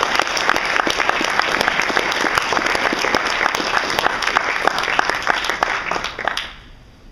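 Audience applauding, a dense patter of many hands clapping that dies away about six and a half seconds in.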